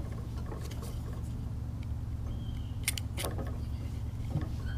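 A steady low hum, with a few faint light clicks and rustles about three seconds in as a flexible LED light strip is handled.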